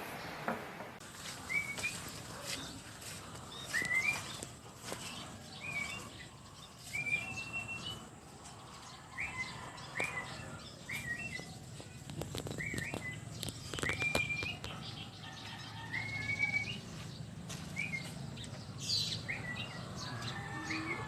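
Pet bird chirping over and over, short rising chirps roughly once or twice a second, with scattered clicks.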